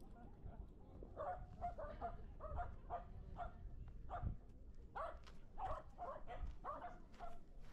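A dog barking repeatedly in quick, short barks, a few a second.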